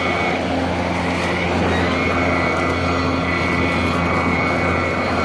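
EGO 56-volt battery-powered lawn mower running with its blades spinning: a steady electric motor hum with a high whine over it.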